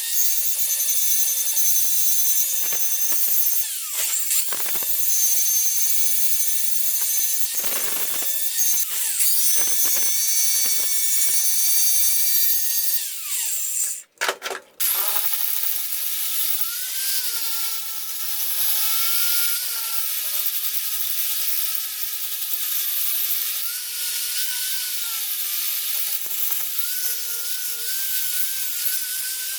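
Angle grinder running against the steel of an old railroad rail, with a high, steady whine and grinding noise. The tool stops briefly about halfway through. When it starts again, its pitch wavers up and down as it is pressed into the work.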